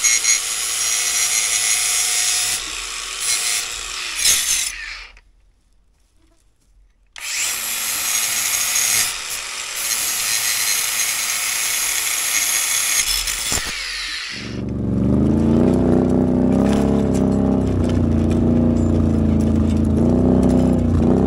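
A harsh, scraping hiss, cut off for about two seconds and then back. About two thirds of the way in it gives way to an ATV engine running and revving up and down under load as it pulls logs.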